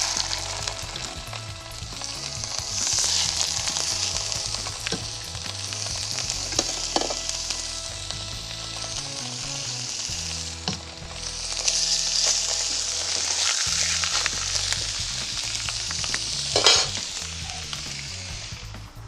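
Fish fillets searing in olive oil in a hot frying pan, a steady sizzle that swells louder twice, a few seconds in and again about midway, with a few sharp pops.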